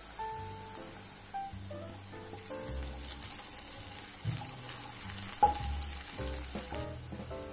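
Butter sizzling with softened chopped onion and garlic in a frying pan as it is stirred with a wooden spatula, under background music with plucked notes and a bass line. A sharp click sounds about five and a half seconds in.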